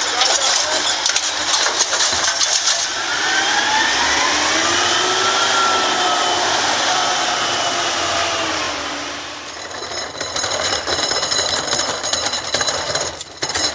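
Wayne Curbtender side-loader garbage truck emptying a cart with its automated arm: clattering and knocking, then a whine that rises and falls in pitch as the arm works and the truck pulls away. About nine seconds in, this gives way to a plastic wheelie bin's wheels rattling over gravel and stepping stones.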